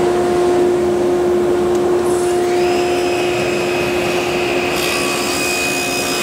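Table saw running at full speed with a steady hum. From about halfway in, a higher whine and hiss join as the blade cuts through a 3/4-inch plywood panel pushed on a crosscut sled.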